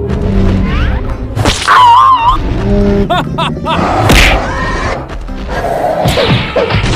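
Cartoon fight sound effects over background music: whooshes, hits and thuds, a wavering squeal near two seconds, and a loud blast just after four seconds.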